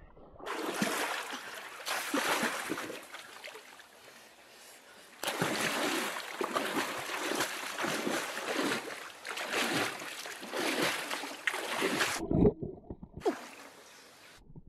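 Water splashing and sloshing in irregular bursts, louder from about five seconds in and stopping abruptly near the end.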